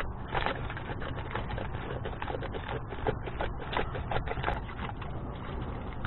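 Wet stones and gravel clicking and scraping against each other in quick, irregular knocks as stones are dug out and shifted by hand.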